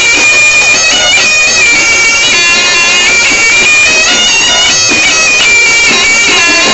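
Slompret, the double-reed shawm of a reog Ponorogo ensemble, playing a loud, reedy melody of long held high notes with small turns between them.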